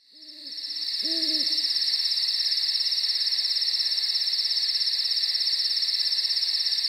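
Two owl hoots in the first second and a half over a loud, steady, fast-pulsing insect trill that fades in at the start.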